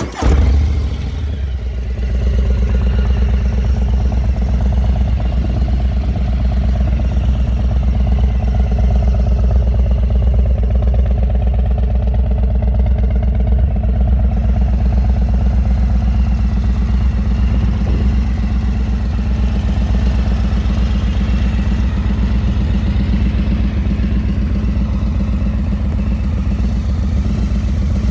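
Harley-Davidson Low Rider ST's Milwaukee-Eight 117 V-twin idling through a Thunderheader X-Series 2-into-1 exhaust, just after start-up. It flares briefly at first, then settles within a couple of seconds into a steady idle.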